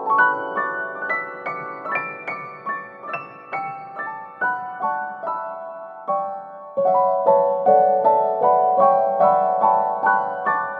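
Background piano music: single notes picked out one after another at a gentle pace, each ringing and fading, with a fuller, louder passage starting a little past halfway.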